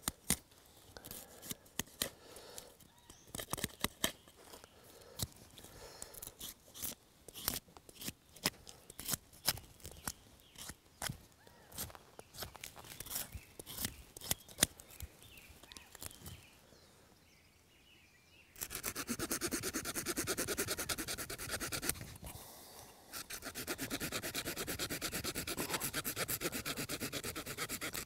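Leatherman P4 multitool blade carving a green stick: a string of sharp shaving cuts and clicks for about the first sixteen seconds. After a short pause comes a fast, steady back-and-forth rasping of the tool working the wood, with a brief break partway.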